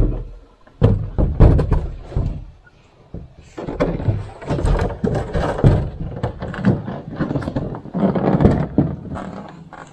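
Irregular thumps, knocks and scraping of a lightweight carbon-kevlar canoe hull and the camera bumping against it, with a short lull about three seconds in, as the canoe is handled and taken down from an overhead carry.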